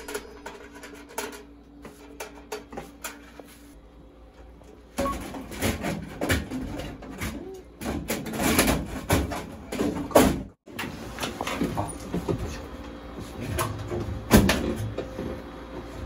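Knocking, clicking and clattering of a new kitchen range-hood fan unit being handled and pushed into its mounting. The handling is sparse at first and becomes busier and louder about five seconds in.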